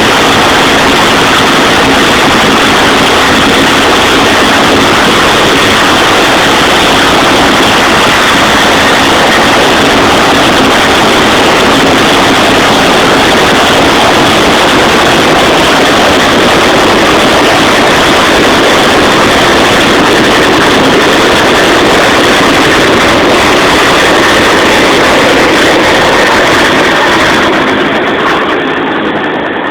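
Helicopter running loud and steady, a dense mix of turbine and rotor noise, easing off over the last couple of seconds.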